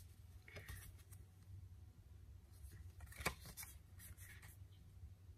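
Faint rustling and sliding of small paper journaling cards being leafed through by hand, with a sharper tap of card about three seconds in.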